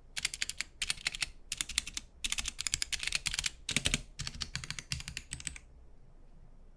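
Typing on a Gamakay K66 mechanical keyboard with stock Gateron Yellow KS-9 linear switches: quick runs of keystrokes in bursts with short pauses between, stopping about two-thirds of the way through.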